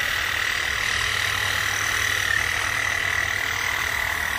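A dense, steady chorus of frogs calling, with one constant high trill running through it.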